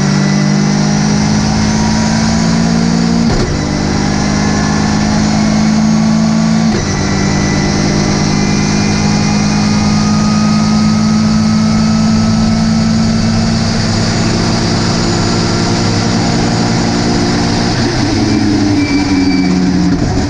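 Ginetta GT5 race car engine running hard under load at steady high revs, with brief breaks about three and a half and seven seconds in as it changes gear, and a change in engine note near the end.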